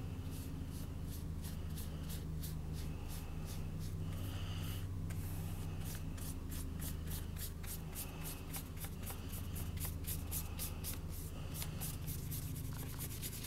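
Watercolor paintbrush stroking across paper in quick, short, scratchy strokes, a few each second.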